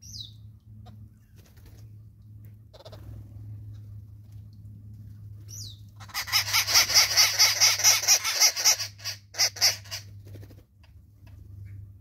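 Arrow-marked babblers giving their loud, harsh, rapid cackling chatter for about four seconds from halfway through. Before it come a couple of short, falling, whistled bird chirps.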